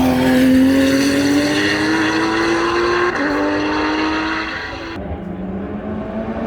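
GT3 race car accelerating hard, its engine note climbing, with a quick upshift about three seconds in before it climbs again. About five seconds in the sound suddenly dulls and drops to a lower, quieter note as the car gets farther away.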